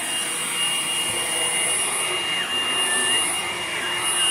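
Hoover Blade+ vacuum cleaner running while vacuuming a floor: a steady high motor whine over the rush of air.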